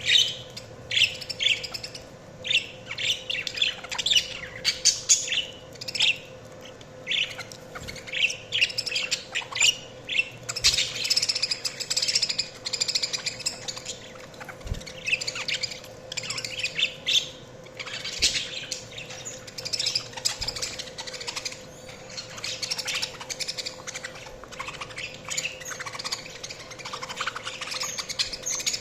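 Budgies (budgerigars) chirping and chattering in a near-continuous stream of short, high chirps.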